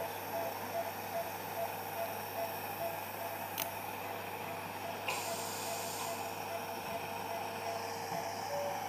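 Anaesthetic patient monitor beeping rapidly and evenly, about two to three short beeps a second, keeping time with the puppy's heartbeat. The beep drops slightly in pitch near the end. There is a steady electrical hum and hiss underneath, and a sharp click about three and a half seconds in and again about five seconds in.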